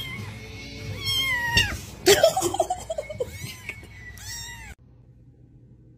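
Kitten mewing over and over in high, arching cries, with a louder, lower cry about two seconds in. The calls stop abruptly near the end.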